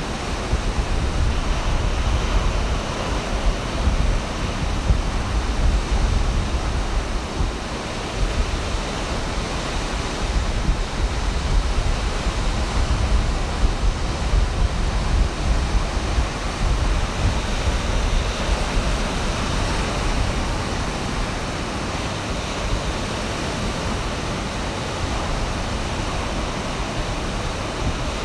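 Ocean surf breaking and washing ashore in a continuous, steady rush, with a low rumble of wind on the microphone.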